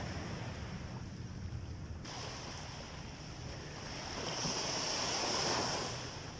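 Sea waves breaking and washing up a beach, a steady surf that swells to a louder surge about four seconds in and eases off near the end.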